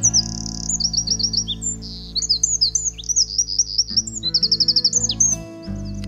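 Wren singing a loud, fast song of high, rapid notes broken by quick trills about a second in and again about four seconds in, stopping shortly before the end. Soft background music plays underneath.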